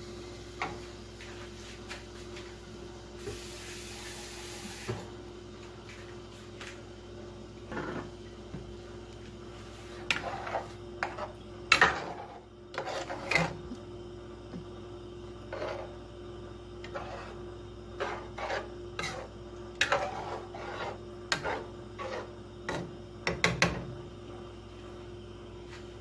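A spatula scraping and knocking against a saucepan and bowl as cooked black beans are scraped into the pot and stirred: a run of short scrapes and clicks, loudest about twelve seconds in, over a steady low hum.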